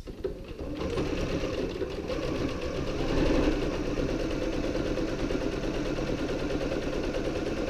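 Domestic electric sewing machine running steadily, stitching a seam through two layers of fabric; it starts up just under a second in.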